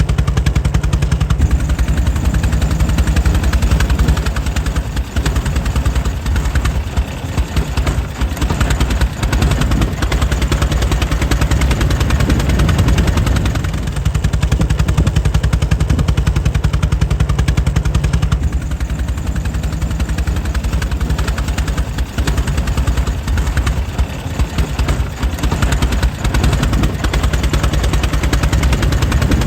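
Air-cooled 1904 Mitchell engine running steadily, a fast, even train of sharp firing beats.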